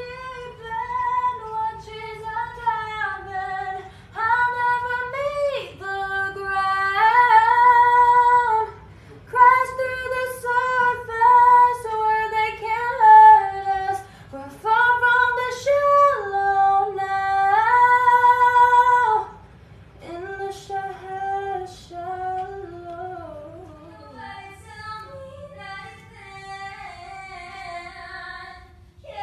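A female voice singing a melody solo, with long held notes, softer after about nineteen seconds.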